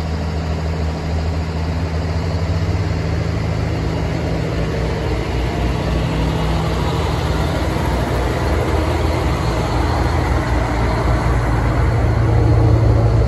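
Northern Ireland Railways diesel multiple unit pulling out of the platform, its underfloor diesel engines running with a steady low note that grows louder near the end.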